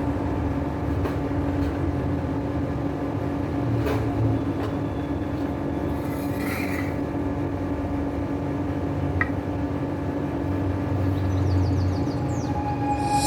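Steady low mechanical hum with a low rumble underneath, and a few faint clicks and brief faint higher sounds over it.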